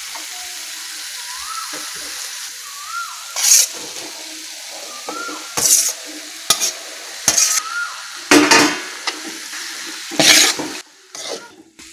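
Tomato masala sizzling steadily in a metal kadai while cooked rice is tipped in and mixed with a steel spatula, which scrapes against the pan about half a dozen times.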